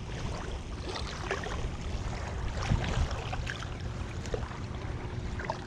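Wind rumbling on a small camera microphone at the shoreline, with scattered faint ticks and rustles from handling the rod and landing a small fish.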